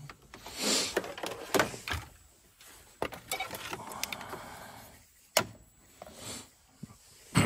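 Hands handling parts in a car's engine bay: rustling and scattered clicks, with one sharp click about five seconds in.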